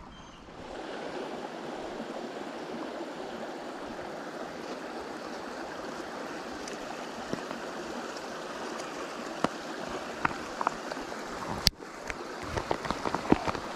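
Steady rush of running stream water. Near the end come several sharp clicks and rattles as a plastic tackle box is handled.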